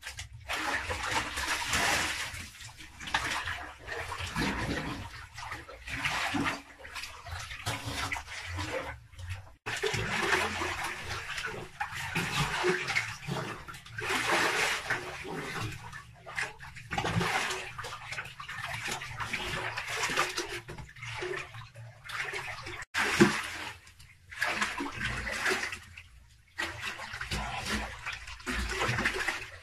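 Water splashing and sloshing in a small pool as a person swims and moves through it, in irregular surges with short pauses. One sharper, louder splash comes about two-thirds of the way through.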